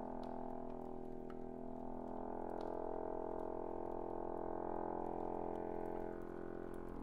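Chromatic button accordion holding a dense cluster of low and middle notes, with faint scattered clicks; the higher notes of the cluster fade near the end.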